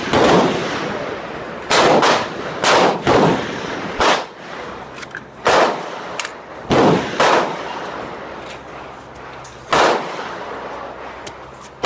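Gunshots at a shooting range: about eight loud shots at uneven intervals, some in quick pairs, with a few fainter shots between, each trailing off briefly.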